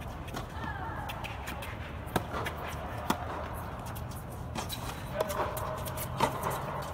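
Tennis rally on a hard indoor court: a string of sharp pops from racket strikes and ball bounces, spaced irregularly about a second apart, the loudest about two seconds in and about six seconds in. Shoes shuffle and scuff under them, over a steady low hum.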